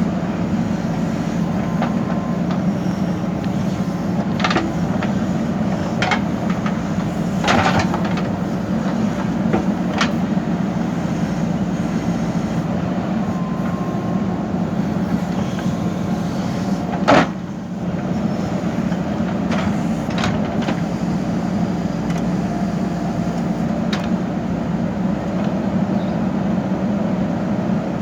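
JCB backhoe loader's diesel engine running steadily under digging work, with scattered sharp knocks, the loudest about 17 seconds in.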